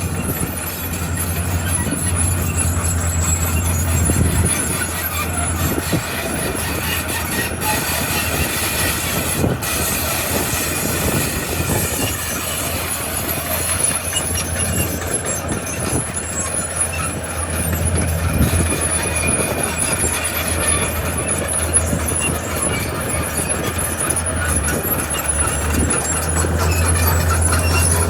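Heavy earthmoving machinery spreading gravel: a diesel engine running steadily with a low drone under a continuous grinding, metallic noise.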